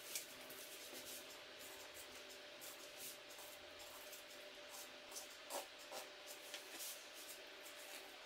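Faint scraping and rubbing of a kitchen knife cutting a fillet off a wels catfish, in scattered short strokes with a few sharper ones a little past the middle.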